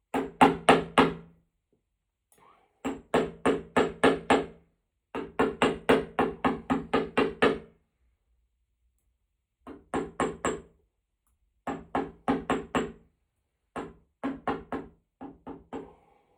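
Hand hammer striking metal on a small anvil while forging a silverpoint stylus. The blows ring and come in quick runs of about four a second, separated by short pauses.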